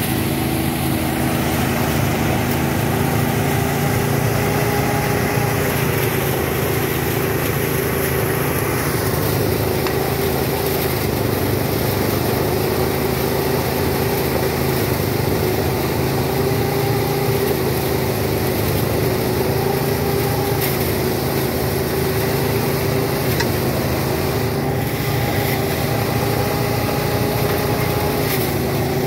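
Engine of a rice threshing machine running steadily at constant speed, a continuous hum whose pitch wavers slightly.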